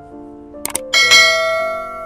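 Background piano music, with a couple of light clicks and then, about a second in, a loud bright metallic ring like a small bell or struck metal piece that fades over about a second.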